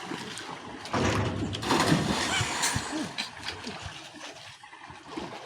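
River water splashing, loudest in bursts about one and two seconds in, with faint voices behind.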